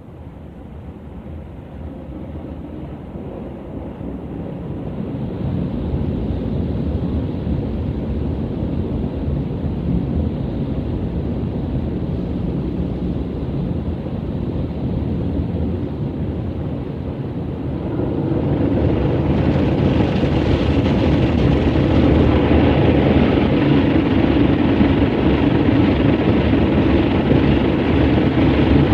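A WashTec SoftCare 2 Pro gantry car wash working over the car, heard from inside the cabin: a steady rush of water spray and machinery that builds over the first several seconds. About two-thirds of the way through it grows louder, as the rotating SofTecs brushes scrub the windshield and sides.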